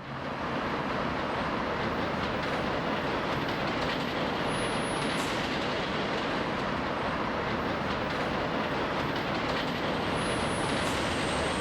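Steady running noise of a moving vehicle, fading in at the start and holding even throughout.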